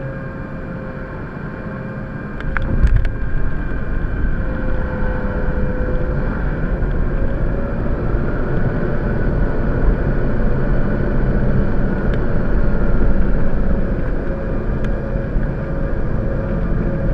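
Cabin sound of a Bombardier CRJ700 landing, its General Electric CF34 jet engines running with a steady tone. About two and a half seconds in, the wheels touch the runway with a sharp thump, and a louder rumble of the landing roll follows.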